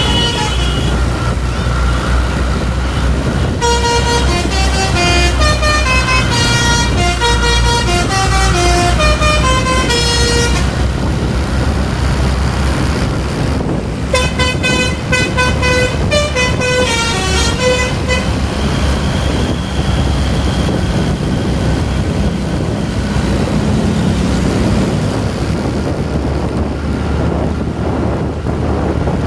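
Basuri multi-tone "telolet" horn on a medium tour bus playing a tune of short stepping notes, twice: a long run starting about three seconds in and a shorter one about halfway through, over the bus engine running.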